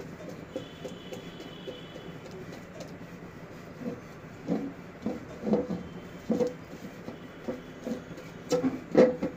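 A silicone spatula stirring melting sugar in an aluminium pot, scraping and knocking against the pan in uneven strokes. The strokes start about four seconds in and grow louder toward the end.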